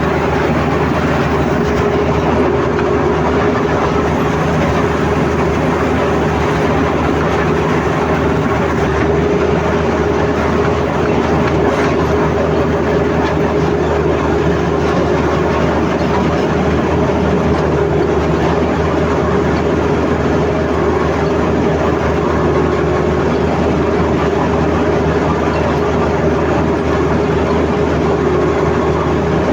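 Komatsu D85ESS crawler bulldozer at work: its diesel engine runs steadily under load, with a steady whine and the noise of its steel tracks.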